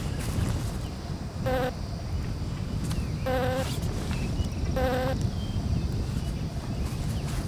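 An animal bleating three times, about a second and a half apart, the middle bleat the longest, over a steady low rumble of wind on the microphone.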